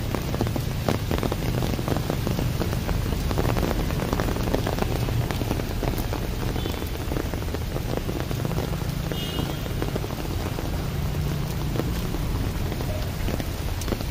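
Steady rain with rainwater gushing down into a street storm drain.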